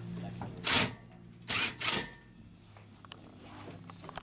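Cordless drill-driver driving screws into the bracket of an aluminum deck railing's bottom rail, in three short bursts within the first two seconds.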